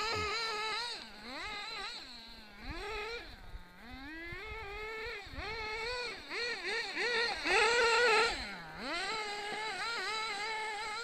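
Hyper 7 RC buggy's motor revving up and down over and over as it is driven hard through turns, its pitch climbing and dropping about once a second, loudest shortly after the middle.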